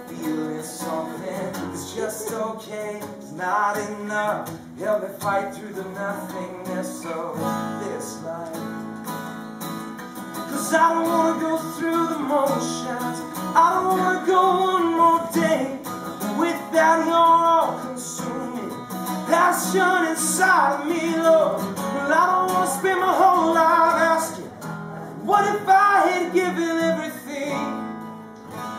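Acoustic guitar strummed live, with singing over it that gets louder about ten seconds in.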